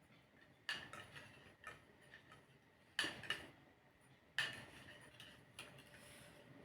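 A spoon clinking against soup dishware: about five light, unevenly spaced clinks, each with a short ring.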